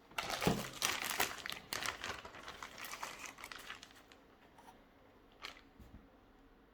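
Packaging being handled, crinkling and rustling for about four seconds before dying away, then two small clicks.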